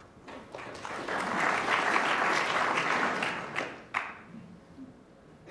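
Audience applauding a well-played safety shot in a snooker match. The clapping swells over the first second or so and dies away about four seconds in.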